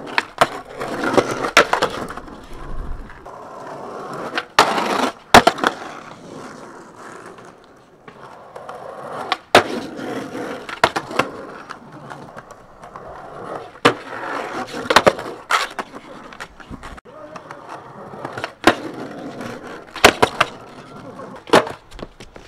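Skateboard wheels rolling over rough asphalt in several passes, each broken by sharp clacks of the board striking the pavement and concrete ledge as tricks are popped and landed or bailed.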